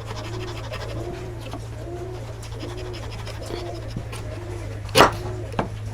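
A single sharp knock, like a strike on wood, about five seconds in, with a smaller one just after. Under it runs a steady low hum and a soft low tone that repeats about every three quarters of a second.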